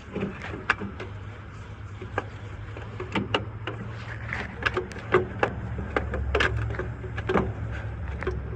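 Hand tools working on the truck's starter mount: irregular sharp clicks and knocks, over a steady low hum.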